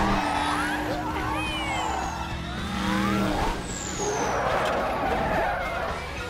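Film car-chase sound: vehicles racing with squealing tyres, and a long low two-tone horn, like a semi truck's air horn, held for the first three seconds or so before it cuts off.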